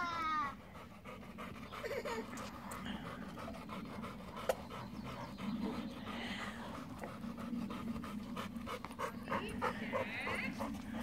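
A dog panting steadily in quick, short breaths, the yellow Labrador with its tongue out. A brief high-pitched sound that bends up and down comes right at the start.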